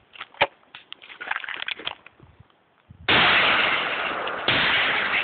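Two 20-gauge double-barrel shotgun blasts about a second and a half apart, the first about three seconds in. Each is loud and sudden, with a long noisy tail after it.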